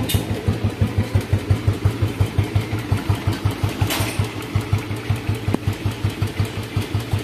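1970 Royal Enfield Bullet 350's single-cylinder four-stroke engine idling with an even beat of about six pulses a second, running smoothly and quietly for its age. A brief knock sounds about four seconds in.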